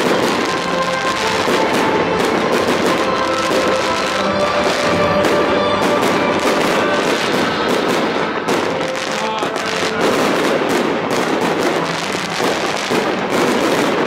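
Fireworks display going off without pause: aerial shells bursting and crackling in a dense, continuous barrage. Music plays along underneath.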